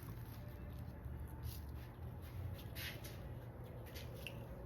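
Faint, scattered scratching and rubbing as glue is worked off a handbag's brass hardware, a few short strokes over a low steady hum.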